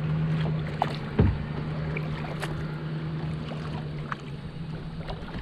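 Kayak paddle strokes: the blades dipping and splashing in calm water with scattered drips, and a low knock about a second in, over a steady low hum.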